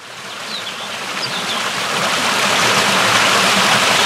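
Steady rushing water, fading in and growing louder, with a few faint high chirps about half a second and a second and a half in.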